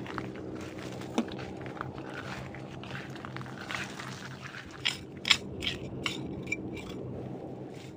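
Steady low drone of a boat's engine out at sea, with irregular crunching and crackling sounds close by, the sharpest a little after halfway.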